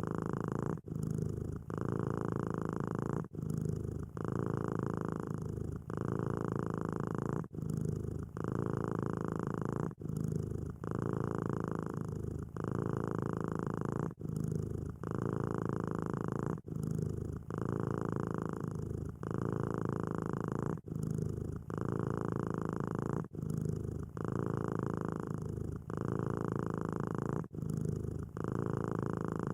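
Domestic cat purring steadily close to the microphone. The purr swells and eases with each breath, with a short break every one to two seconds.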